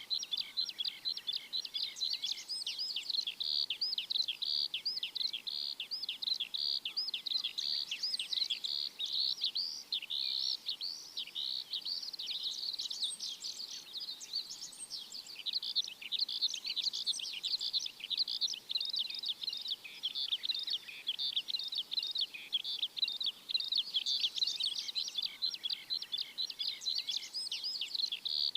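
Many small birds chirping at once: a dense, continuous chorus of short, quick-sweeping high chirps overlapping one another.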